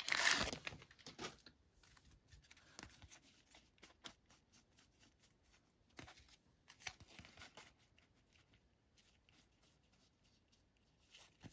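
Trading-card booster pack wrapper being torn open, then faint rustling and light clicks of the cards being handled.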